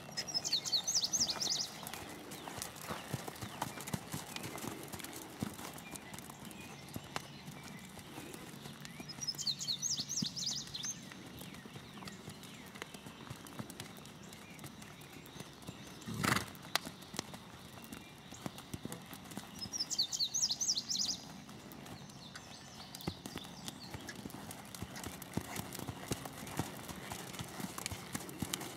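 Bare hooves of a Tennessee Walking Horse striking sand in a steady four-beat walking gait. A high trilling phrase comes three times, about ten seconds apart, and a single sharp thump is heard about sixteen seconds in.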